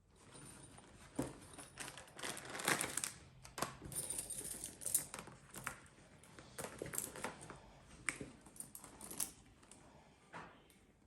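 Irregular light taps, clicks and rustles of small objects being handled, with several sharper clicks between about one and nine seconds in.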